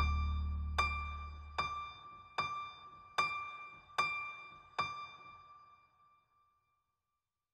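Closing bars of an indie art-pop song: a deep bass note dies away while one high note is struck again and again, about every 0.8 s. The notes fade out to silence about six seconds in.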